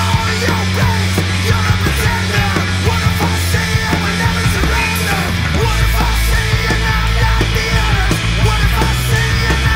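Rock band playing: distorted electric guitar, electric bass and a drum kit with cymbals, with a male voice singing over them.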